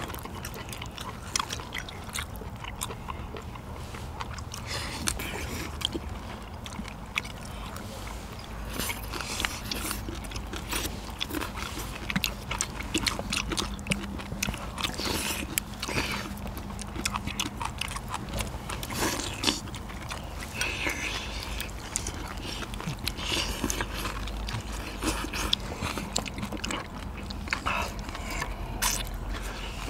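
Several people eating braised spicy seafood: wet chewing and slurping, with scattered light clicks of chopsticks on bowls and plates.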